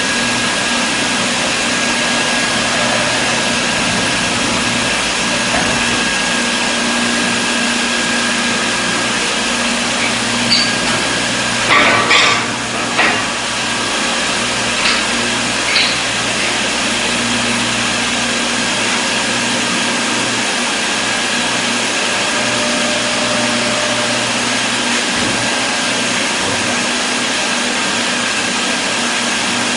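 Induction brazing rig for diamond saw blade segments running with a steady whirring noise, a faint high whine and a low hum. A few sharp clicks and knocks come about halfway through.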